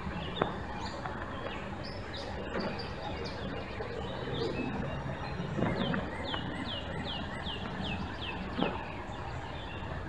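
Small birds chirping over a steady outdoor background noise, with a quick run of about eight short falling chirps in the middle and a couple of soft knocks.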